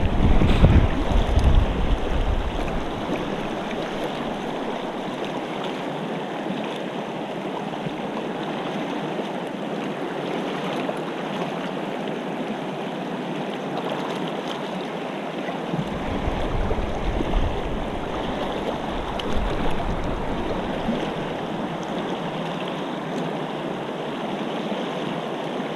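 Shallow river riffle rushing steadily over rocks. Low wind gusts buffet the microphone in the first few seconds and again a little past the middle.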